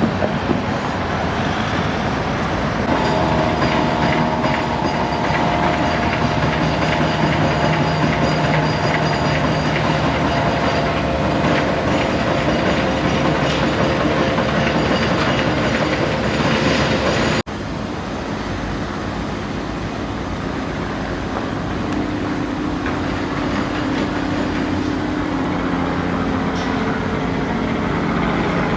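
Electric suburban train running along the track, with a traction-motor whine over wheel and rail noise. The sound cuts abruptly partway through into another passage of train noise with a lower, slowly rising whine.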